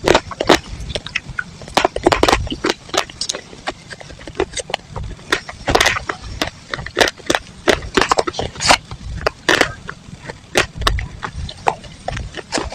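Dry chalk and clay pieces crunching and crumbling: a fast, irregular run of sharp cracks and snaps, several a second, some louder than others.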